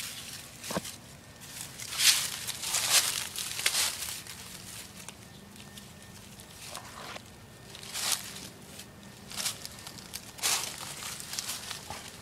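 Dry fallen leaves crunching and rustling in irregular bursts as feet move through thick leaf litter.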